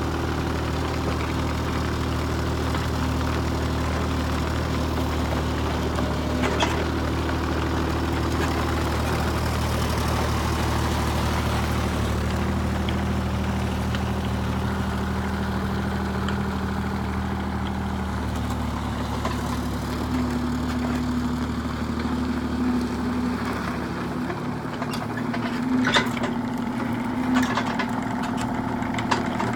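Kubota U35 compact excavator's diesel engine running steadily while it is operated, its pitch shifting a couple of times as the load changes. A few sharp clanks come near the start and twice near the end.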